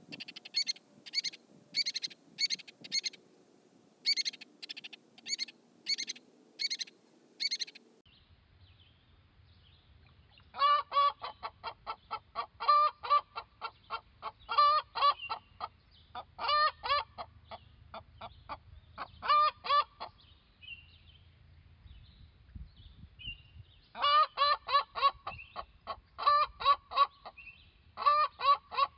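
Hen singing her egg song after laying: loud, repeated clucking in runs with short pauses. For the first several seconds the audio is sped up fourfold, so the calls come as quick, high chirps. From about ten seconds in the calls are at their natural pitch.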